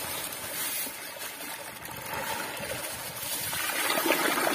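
Dry rice grains pouring from a plastic bag into a large metal pot with a steady hiss. About three and a half seconds in, water starts pouring onto the rice and the sound grows louder.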